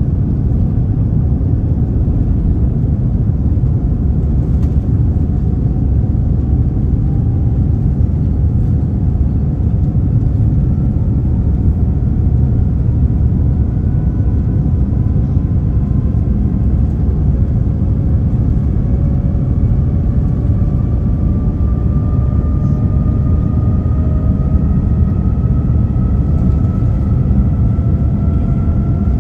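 Boeing 787 Dreamliner's engines on the takeoff roll, heard from inside the cabin: a loud steady rumble with thin whining tones that rise slowly in pitch as the aircraft gathers speed.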